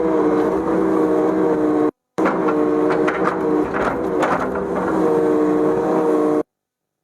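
Kubota KX080-3 excavator's engine running under load with a steady droning tone. The pitch sags and recovers in the middle as the machine works, with a few clanks. The sound cuts out abruptly about two seconds in, returns, then cuts out again near the end.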